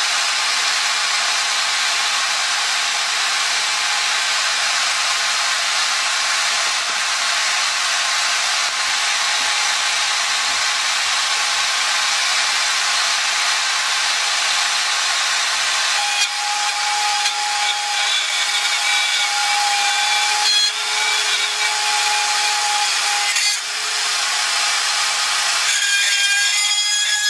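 Home-built CNC mill's high-speed spindle motor running steadily with a loud hiss-like whir while its end mill routs into plywood. Pitched whines come and go from about sixteen seconds in, and more of them join near the end.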